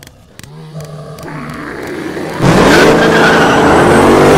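Race car engine sound effect. A quieter low hum, then about two and a half seconds in the engine bursts in loud, revs up in pitch, holds high, and falls away near the end.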